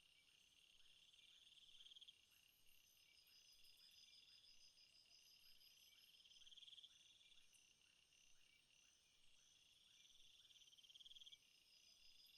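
Faint night chorus of rainforest insects, crickets and katydids trilling in several layers, one trill swelling for about two seconds and stopping abruptly three times. Under it runs a regular series of short, quiet chirps, about two or three a second.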